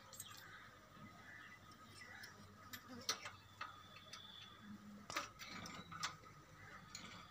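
Faint scattered clicks and small rustles of electrical wires being handled and wrapped against a bicycle's metal frame, with a few louder clicks about three, five and six seconds in.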